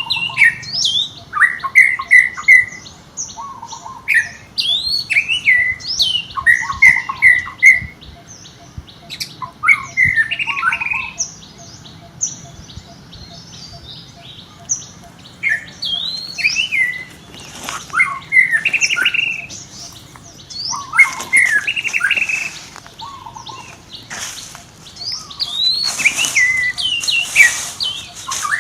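Many short, high chirping calls in quick clusters throughout, with a few brief bursts of rustling noise in the second half.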